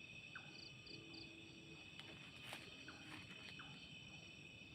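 Faint steady chirring of night insects in dense vegetation, with a few soft clicks.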